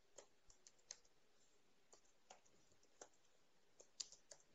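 Computer keyboard typing: about ten faint, irregularly spaced keystrokes.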